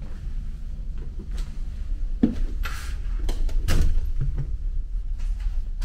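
Steady low rumble of the ferry's engines. Over it come a sharp knock about two seconds in, a short sliding hiss just after, and a heavier knock near four seconds, from someone bumping and sliding against the wooden panels while getting into a capsule bunk.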